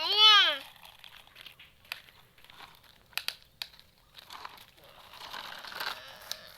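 A short, high, pitched call that rises and falls right at the start, then scattered light clicks and a crinkling, rustling handling noise that swells near the end.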